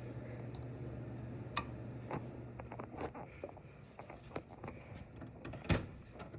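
Scattered small clicks and knocks, with one sharper click near the end, over a low hum that fades out about halfway through.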